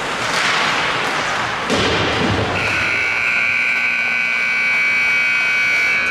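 Scoreboard game horn sounding one steady, held blast of about four seconds, starting about two and a half seconds in. A thump comes just before it.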